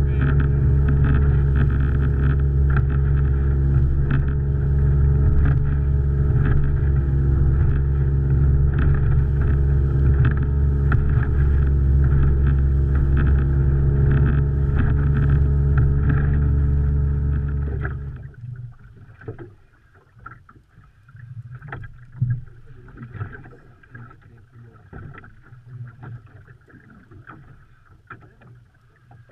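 Boat engine running steadily, then stopping about two-thirds of the way in. After it stops, only quieter, irregular knocks remain.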